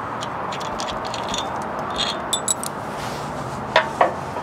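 Small metal clicks of loose bolts and washers jingling in a hand, then two sharp metal clunks about 3.8 and 4 seconds in, with another at the very end, as a new steering bell crank is set against the steel frame rail.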